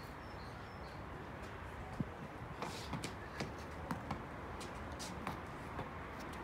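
Tennis ball being hit with rackets and bouncing on paving stones: a string of sharp pocks at irregular intervals.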